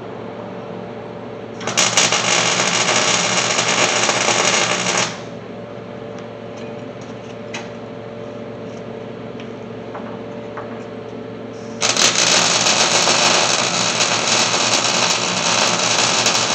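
Electric arc welder crackling in two runs, about three seconds and then about five seconds long, as a C-notch piece is tack-welded onto a steel truck frame rail. A steady low hum sits underneath throughout.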